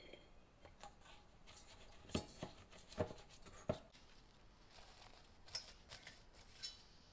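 A few soft knocks as the ball of bread dough settles into a stainless steel mixing bowl and the bowl is handled, then light crinkling of plastic wrap being stretched over the bowl near the end.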